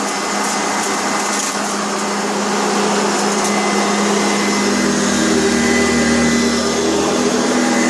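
Sanitaire SC684 upright vacuum cleaner running steadily, its motor humming over the rush of air, with a few faint clicks of dog-food kibble rattling through it. The owner says the motor doesn't sound good because it arcs a little.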